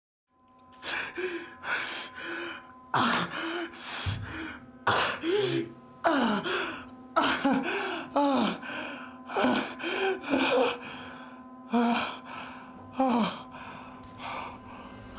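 A man gasping and crying out in pain about a dozen times, roughly once a second, many cries sliding down in pitch, with a steady low hum underneath.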